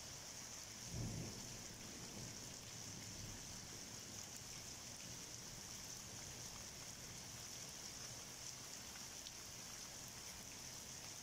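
Steady hiss of heavy rain falling, with a short low rumble about a second in.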